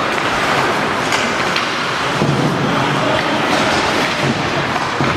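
Ice hockey arena din during play: a steady rushing noise of the game on the ice and in the rink, with a few sharp clacks.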